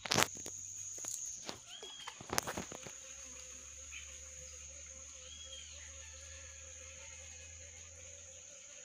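Rural outdoor ambience: insects keep up a steady high-pitched buzz while a bird gives a short rising-and-falling chirp twice, a few seconds apart. A few loud knocks come right at the start and again about two and a half seconds in.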